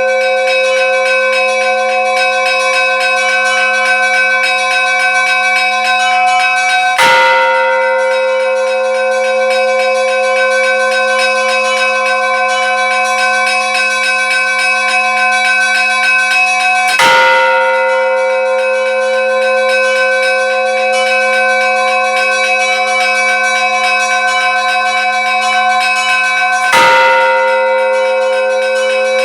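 Bells ringing in a continuous wash of sustained tones, with a fresh, louder strike about every ten seconds, three times.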